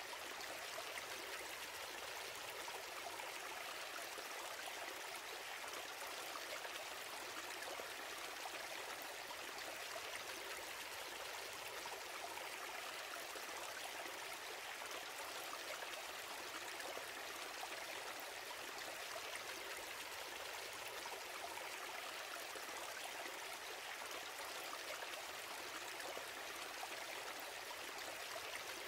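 Steady, even hiss with no other sound.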